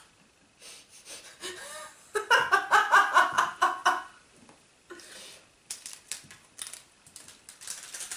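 A woman laughing: soft giggles at first, then a loud burst of rapid ha-ha pulses lasting about two seconds. Afterwards come small clicks and rustles of plastic candy-kit packets being handled.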